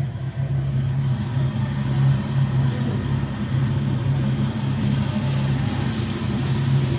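Steady low mechanical hum with a faint hiss over it.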